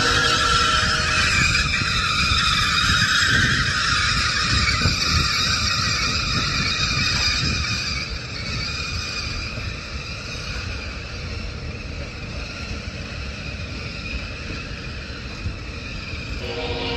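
Railroad passenger cars rolling slowly past: a steady rumble of steel wheels on the rails with a high, hissing wheel screech. The screech is loudest at first and eases off about eight seconds in.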